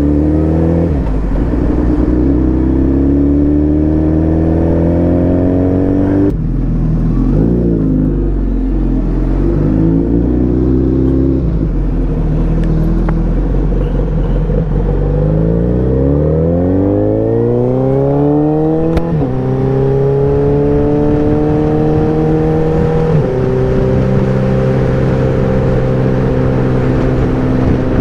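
Suzuki Hayabusa's inline-four engine accelerating through the gears: its pitch climbs, drops sharply at an upshift about six seconds in and climbs again. After more shifts it settles to a steady cruise in the second half.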